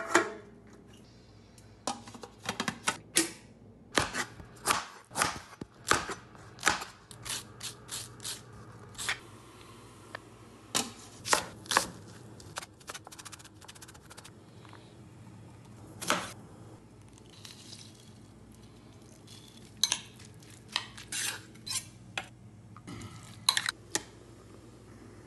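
Kitchen food-prep sounds with no speech: a metal steamer basket clanking as it is handled on a rice cooker, and a knife chopping red onion on a wooden cutting board. The sharp knocks come in irregular runs, with the loudest clank right at the start.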